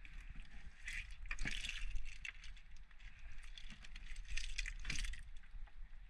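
Netting and frame of a fish trap rattling and rustling as it is handled, in a few scattered bursts, over a steady low rumble.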